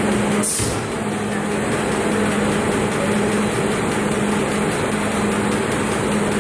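Digital web press and Smart Stacker conveyor running: a steady machine drone with a constant hum under a dense hiss. About half a second in comes a short, sharp burst of high hiss.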